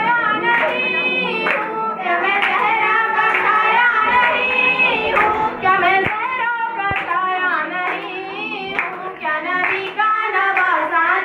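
Girls' voices singing a song, with hand claps among the singing.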